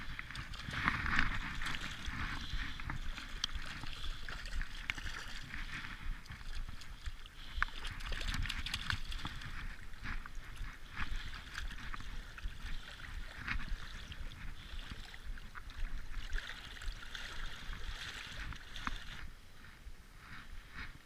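Water sloshing and gurgling close against a kayak, with scattered small knocks and clicks of gear being handled.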